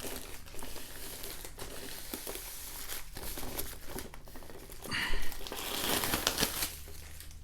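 Plastic wrapping crinkling and rustling as it is handled and crumpled, with a louder rustle about five seconds in.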